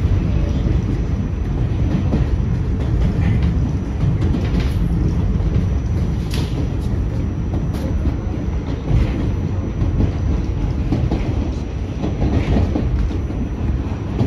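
An R46 New York City subway car running along the track, heard from on board: a steady low rumble with a few sharp clacks over the rails and a faint high whine.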